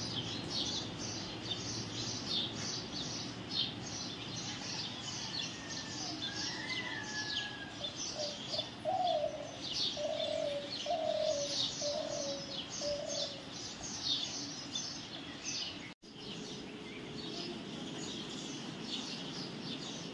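Many birds chirping continuously in quick, high, short notes, with a lower call repeated five times about a second apart in the middle.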